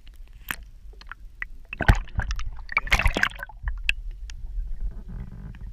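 Water splashing and sloshing as bass are handled and released from a fishing boat, with the loudest splashes about two and three seconds in, amid scattered knocks and clicks.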